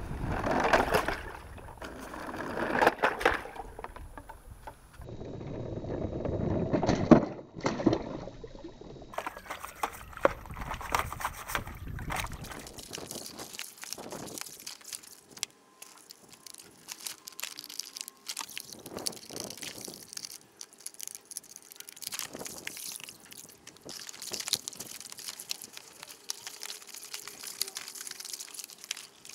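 Water sloshing and splashing as plastic toy tractors are scrubbed with a brush and moved about in a tub of soapy water, with many small clicks and knocks of plastic. In the first dozen seconds there are a few louder rumbling swells.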